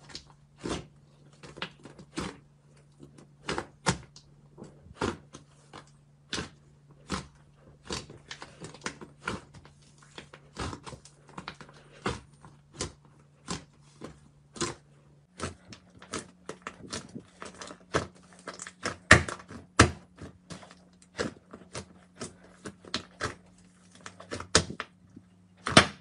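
Thick pink slime squeezed and pressed by hand in a glass bowl, giving irregular sharp pops and crackles of trapped air, a few a second, over a faint steady low hum.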